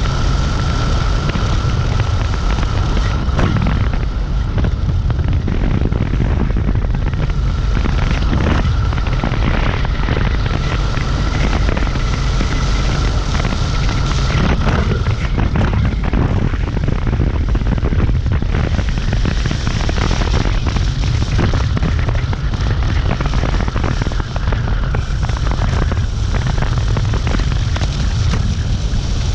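Wind buffeting the microphone and road noise from a moving Dualtron Compact electric scooter, with a steady high whine from its hub motor that fades in and out a few times.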